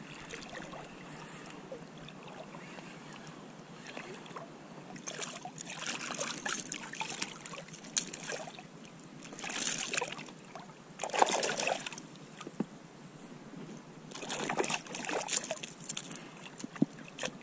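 Water splashing and sloshing in irregular bursts beside an inflatable kayak as a small hooked European sea bass is brought to hand at the surface.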